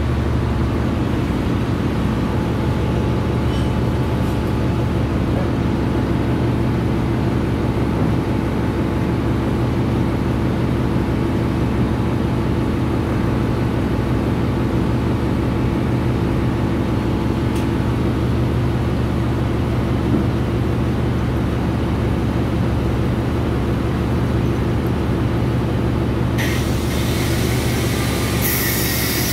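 Steady drone of running marine machinery in a ship's engine room, with several constant low hum tones. A hiss joins in near the end.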